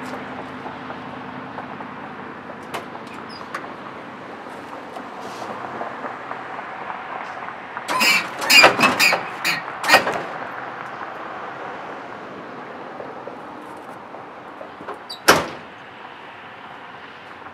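A quick series of sharp clunks and clacks about eight seconds in, lasting about two seconds, then one more single clack near the end, over a steady low background hum.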